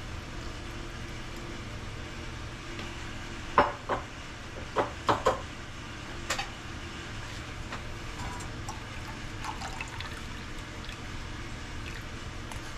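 Bonito-flake dashi draining and dripping through a paper-towel-lined strainer into a pot, with a handful of sharp knocks against the cookware about four to six seconds in.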